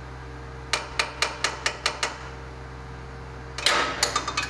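Hand ratchet clicking about seven times, roughly five clicks a second, as the brake hose banjo bolt on the front brake caliper is worked off; then, near the end, a short, louder clatter of ringing metal clinks from the tool and bolt knocking together.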